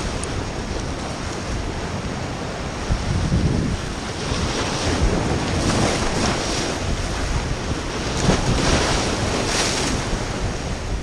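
Ocean surf breaking and washing over jetty rocks, swelling and easing with each wave, with wind buffeting the microphone.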